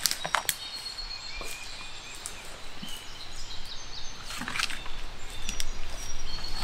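Woodland ambience: birds calling in short, high, thin notes, with a few rustles and crackles of dry leaf litter and paper, the strongest about four and a half seconds in.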